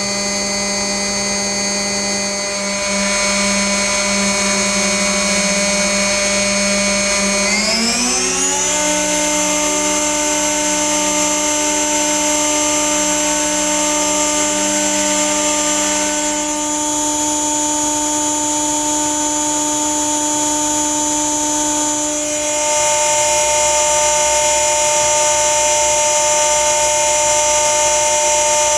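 Multicam 3000 Series CNC router running with a steady whine. About eight seconds in, the whine glides up in pitch, as the spindle speeds up, then holds at the new speed.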